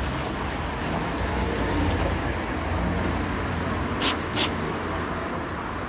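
Steady outdoor noise like road traffic, with two sharp clicks about four seconds in.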